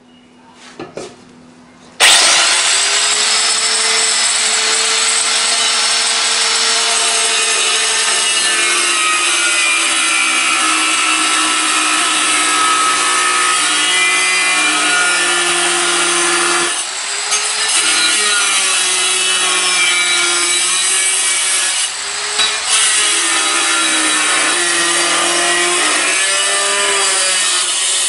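Handheld electric tile cutter with a diamond blade starts suddenly about two seconds in and runs steadily through a wet cut in a ceramic floor tile. Its whine sags in pitch and recovers as the blade is pushed through the cut, with a couple of brief dips along the way.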